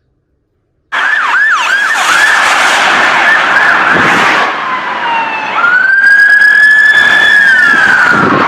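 Emergency vehicle siren switching on about a second in: first a fast yelp sweeping rapidly up and down, then a slower wail that rises, holds and falls.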